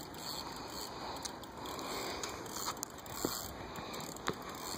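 Spinning reel being worked while playing a hooked sturgeon on a bent rod: a steady mechanical scraping, with a few sharp clicks.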